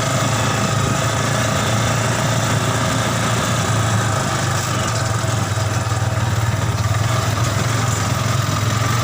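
Yamaha Scorpio Z single-cylinder four-stroke motorcycle engine in a mini buggy, running steadily at an even speed with no revving.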